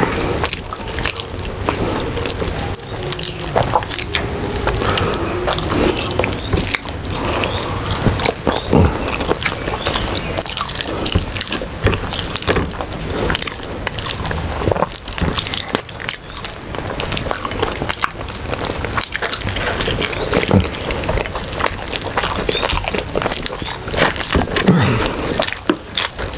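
Close-up eating sounds of khichuri eaten by hand: wet chewing, lip smacks and squelching of soft rice and lentils, with many short clicks throughout.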